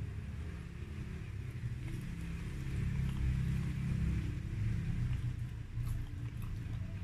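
A steady low rumble that grows louder for a couple of seconds in the middle, with a few faint soft clicks of chewing.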